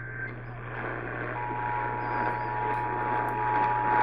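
Emergency Alert System two-tone attention signal starting about a second in and holding steady, heard over radio static hiss and a low hum.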